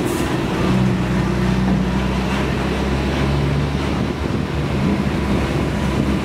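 Heavy diesel tractor-trailer hauling a precast concrete bridge segment on a low-bed trailer, passing close by: a low engine drone over tyre and road noise.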